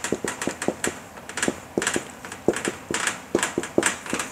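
Marker pen writing on a whiteboard: quick, irregular taps and short scratchy strokes, about four or five a second.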